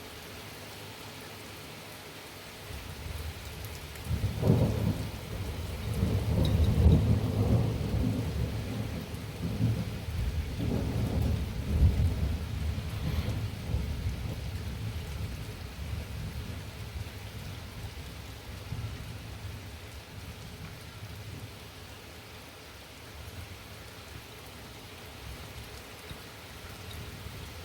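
Thunder rolling over steady rain. The rumble begins a few seconds in with a sharp crack, stays loudest for about eight seconds, then fades slowly back into the patter of the rain.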